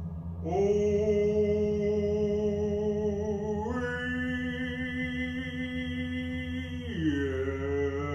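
A man's voice intoning a drawn-out ritual name in long held syllables: level at first, stepping up in pitch about halfway, then dropping lower near the end. A steady low ambient music drone runs underneath.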